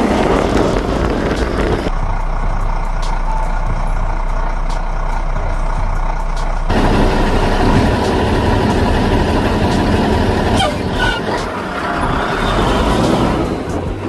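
Heavy truck engine running, a dubbed-in sound effect rather than the toy itself, with the sound changing abruptly about two seconds in and again near seven seconds.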